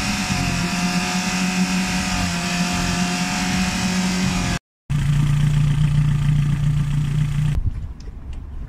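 Boat engine running at a steady speed, a constant drone. A brief cut about halfway through leads into a lower-pitched stretch of drone, which falls to a quieter rumble near the end.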